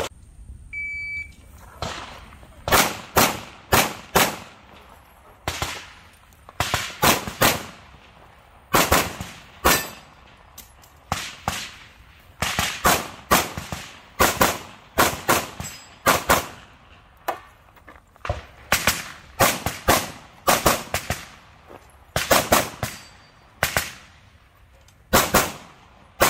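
Rapid semi-automatic pistol fire from a 2011-style handgun, dozens of shots, mostly in quick pairs with short gaps between strings. A short electronic beep sounds about a second in, before the firing picks up again.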